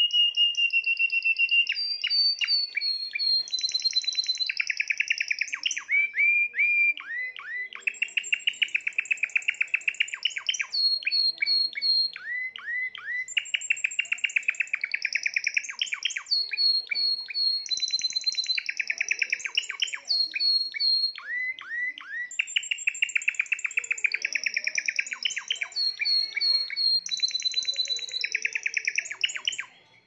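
Spanish Timbrado canary singing an almost unbroken song. Long, fast trills of rapidly repeated notes alternate with higher piping notes and quick downward-swept notes. The song stops abruptly at the very end.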